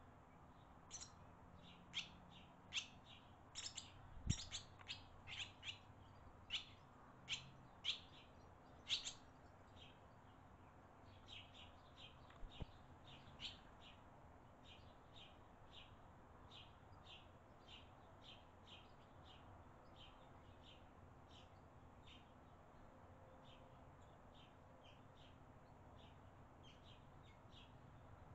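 Barn swallows chirping at the nest: a string of short, high chirps, louder and busier in the first few seconds, then fainter and steadier at about two a second. A single low thump comes about four seconds in.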